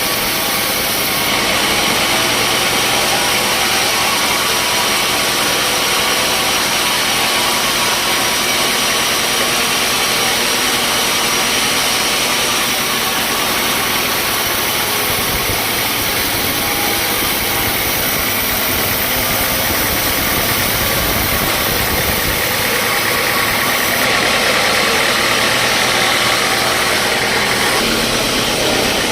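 Sawmill machinery running steadily: a motor-driven saw running on, loud and continuous, with no clear starts or stops.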